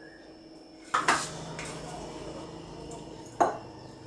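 Metal spoon clinking against a container as cream cheese is spooned into it: a sharp clink about a second in, a second clink late on, with faint scraping between.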